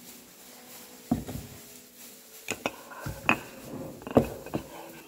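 Kitchen clatter: dishes and utensils being knocked and set down, several sharp clinks and knocks in an irregular run over a few seconds.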